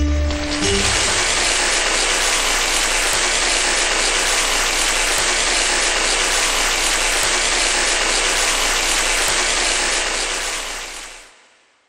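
An orchestra's final chord at the start, then a studio audience applauding steadily, fading out near the end.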